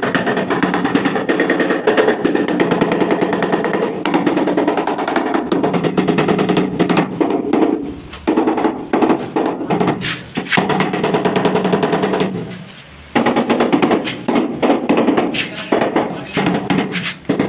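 Mallet tapping rapidly on a large wall tile, bedding it into the tile adhesive, in quick runs broken by a few short pauses.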